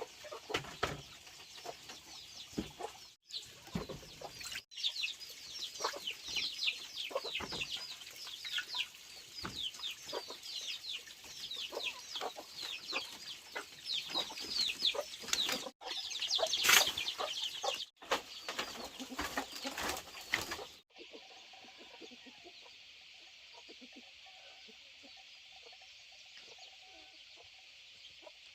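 Chickens clucking, with many quick, high, falling peeps, broken by several abrupt cuts. About three-quarters of the way through it switches to a steady, even hiss.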